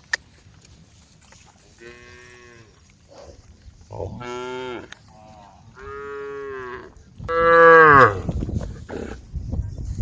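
Cows mooing, calling to the herd: four drawn-out moos, a faint one about two seconds in and the loudest about seven seconds in.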